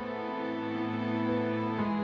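Slow, sad instrumental background music with long held notes; the notes change near the end.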